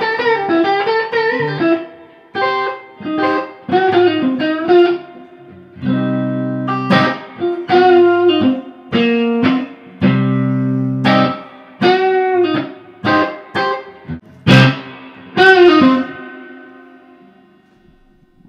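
Electric guitar, a Stratocaster, played through effects pedals to test a newly unboxed booster pedal. It plays a phrase of single notes with string bends, with two held low chords in the middle. The last bent note rings out and fades away near the end.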